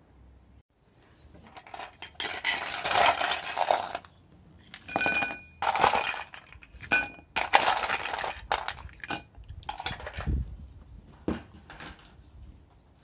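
Ice cubes being dropped into a tall drinking glass: a stretch of clattering ice, then a series of separate clinks against the glass, several ringing briefly.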